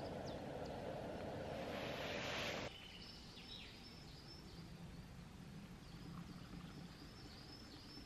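Liquid poured from a flask into a collapsible silicone cup over coffee granules, a steady splashing hiss that brightens before it cuts off sharply about two and a half seconds in. After that, faint birds chirping.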